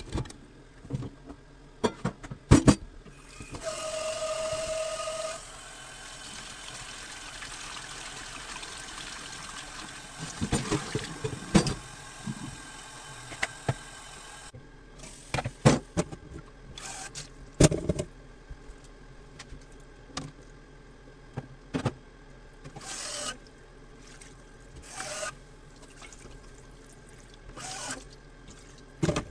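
Kitchen sink work with a pot and plastic colander: clatter and knocks, a steady tone for about a second and a half, then a tap running into a pot for about nine seconds to rinse the scum off parboiled beef tendon, stopping abruptly. Scattered knocks and clinks of pots and utensils follow.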